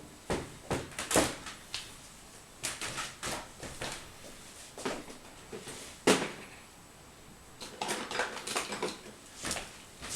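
Irregular clicks, taps and knocks of small hard objects being handled and set down, about a dozen in all, the loudest about six seconds in.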